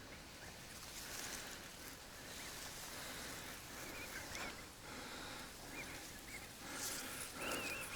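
Faint outdoor ambience: soft rustling with a few short, high chirps scattered through it, and somewhat louder rustling near the end.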